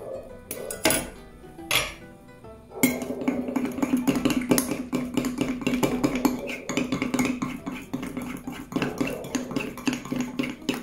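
A metal spoon stirring thick cake batter fast in a ceramic mug, clinking and scraping against the sides in a quick, continuous run from about three seconds in, after a few separate knocks at the start. Background music plays under it.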